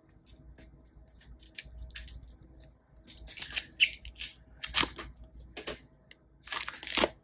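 Thin clear plastic wrapper crinkling and crackling as it is peeled off a small battery pack by hand, in irregular bursts, loudest near the end.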